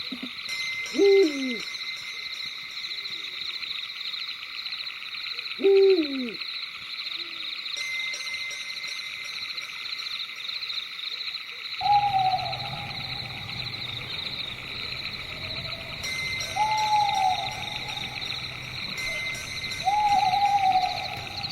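Night insect chorus of crickets trilling steadily, with owl hoots over it. Two loud calls drop steeply in pitch in the first six seconds, then three shorter calls come at about twelve, seventeen and twenty seconds over a low hum.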